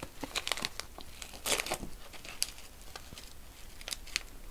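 MRE ration packaging crinkling as a small packet is handled and torn open by hand: a run of crackles, loudest about a second and a half in, with a few sharp clicks near the end.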